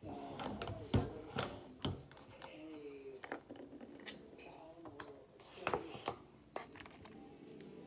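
Lyman Ideal single-stage reloading press being worked by hand while brass .38 Special cases and rounds are handled: sharp metallic knocks and clicks, three loud ones in the first two seconds, then scattered lighter clicks.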